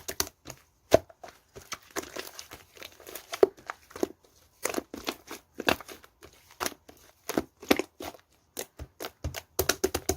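Clay-mixed slime being squished and stretched by hand, giving irregular sharp pops and crackles with softer crinkly stretches in between.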